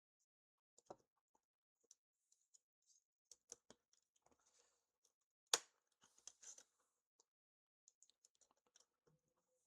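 Faint, scattered small clicks and taps of hand tools working on an opened iPhone's small aluminium parts and cables, with one sharper click about halfway through and a short cluster of taps just after.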